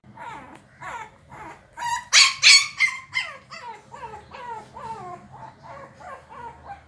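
Shih Tzu puppy whining and yelping in a quick run of short cries, each falling in pitch, about three a second. The loudest, shrillest yelps come about two seconds in, then softer whimpers. It is whining to get a door opened.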